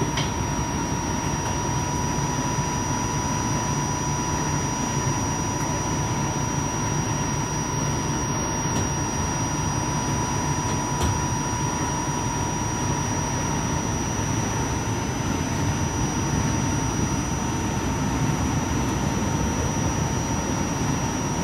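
Steady rumble of a Blue Line light rail car running, with a constant high whine over it, as heard from inside the car.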